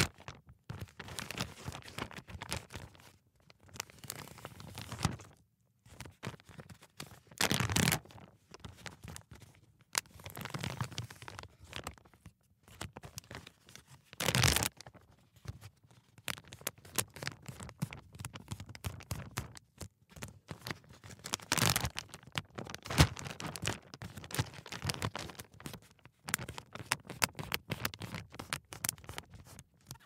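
Ziploc gallon-size resealable plastic bag crinkling and rustling as it is handled, its zip seal pulled open and pressed shut. Irregular crackles run throughout, with louder rustles about eight, fourteen and twenty-two seconds in.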